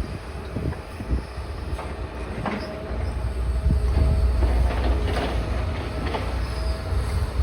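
Demolition excavator at work on a building: the diesel engine rumbles, louder from about three seconds in, while rubble crunches and scrapes and brief metallic squeals sound.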